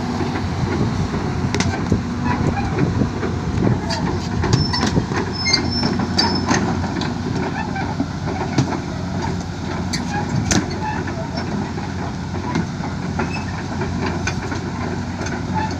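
Backhoe's diesel engine running steadily as the machine travels, with scattered metal clanks and rattles.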